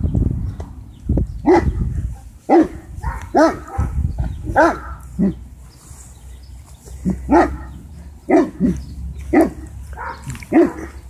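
Several adult Great Danes barking, about a dozen single barks at an irregular pace of one or two a second.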